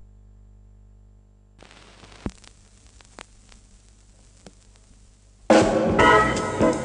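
Opening of a 1960s jazz organ-trio recording. A steady low hum, then soft drums with cymbal wash and a few sharp snare hits from about a second and a half in. About five and a half seconds in, the Hammond organ and the band come in loud.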